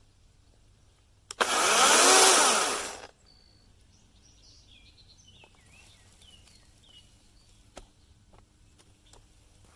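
Battery-powered DeWalt 20V chainsaw revving once for under two seconds, its motor winding up and then back down, after a click about a second in. Faint high chirping follows.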